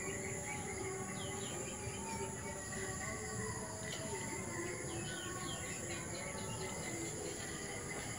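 Garden ambience: a steady high insect drone with birds chirping over and over.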